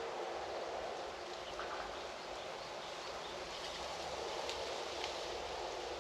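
Steady outdoor background noise, an even hiss with a few faint ticks about four to five seconds in.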